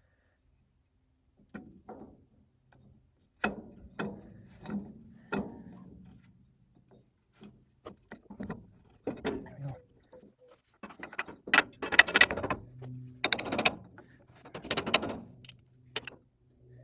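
Metal knocks and clinks as parts of an old Massey Ferguson 204's steering gear are handled and fitted back in place, then denser rattling bursts of metal on metal near the end.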